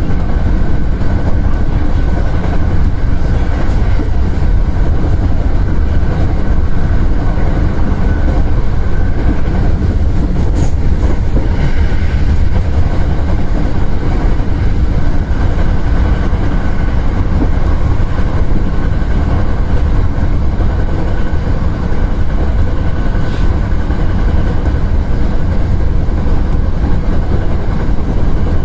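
Hankyu electric train running steadily along the line, heard from inside the leading car: a continuous low rumble of wheels on rail with a faint steady high tone.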